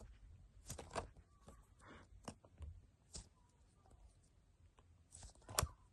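Faint, scattered crinkles and clicks of hands handling a fake-ice-cube squishy toy and its plastic packaging, with a louder crackle near the end.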